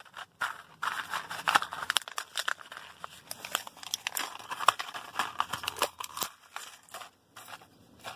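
Paper and plastic fuse packaging crinkling and crackling as it is crumpled and handled, the rustling thinning out near the end.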